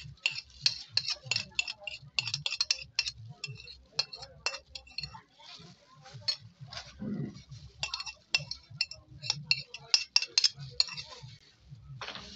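Hand in a plastic glove kneading and squeezing shredded banana heart in a glass bowl: rapid, irregular light clicks and clinks of glass and crinkling plastic, several a second.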